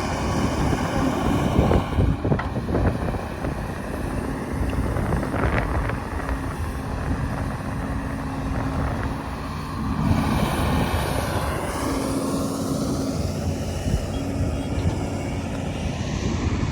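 Cat 320C hydraulic excavator's diesel engine running steadily as the machine works, with a pitched hum that comes and goes. There are a few sharp knocks in the first few seconds.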